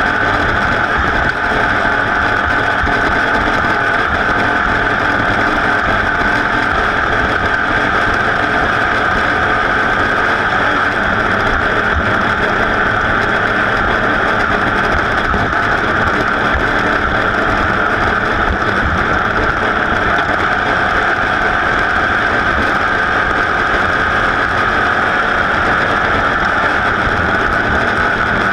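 Racing vehicle's engine running steadily at high revs, mixed with wind noise on an onboard camera's microphone.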